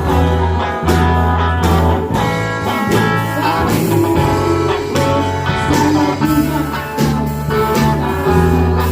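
Band music: a drum kit keeping a steady beat under bass and guitar chords, with some singing.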